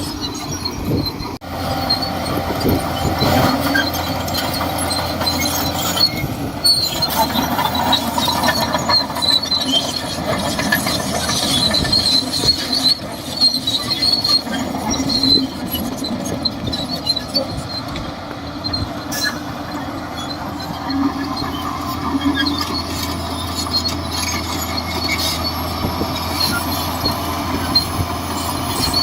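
Shantui DH17C2 crawler bulldozer working: its engine runs steadily under a high-pitched squeal and clank from the steel tracks.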